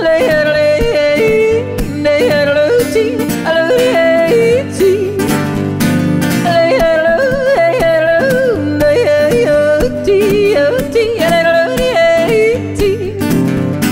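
A woman yodeling, her voice flipping quickly back and forth between lower and higher notes, over a strummed acoustic guitar.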